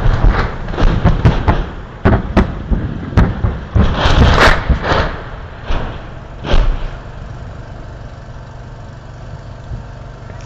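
Artillery shells exploding in a rapid string of booms, more than a dozen in about seven seconds, some overlapping. After that the booms stop and a steady low hum is left.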